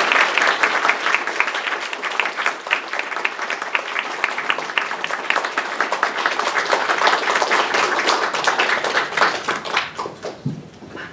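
Audience applauding, thinning out to a few last scattered claps near the end.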